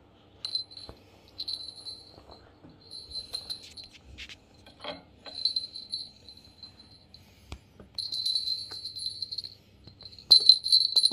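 Small jingle bell on a cat toy tinkling in irregular bursts as cats bat and tug at it, with a few light knocks in between.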